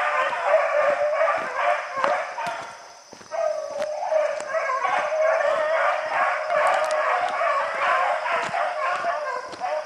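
A pack of beagles baying together, many voices overlapping, thinning out briefly about three seconds in before the chorus picks up again: hounds in full cry on a rabbit's track.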